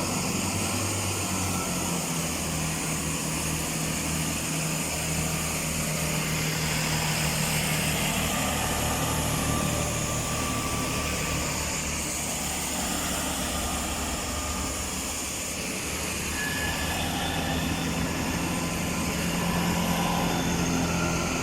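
A pair of coupled Class 165 diesel multiple units pulling out of the station, their underfloor diesel engines running under power with a steady low growl.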